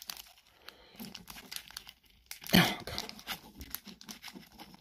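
Foil wrapper of a Pokémon card booster pack crinkling as it is pinched and torn open by hand, with one louder rip about halfway through.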